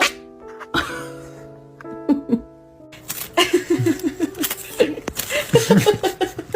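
Background music with held notes; from about three seconds in, a burst of rapid repeated laughter joins it and runs on over the music.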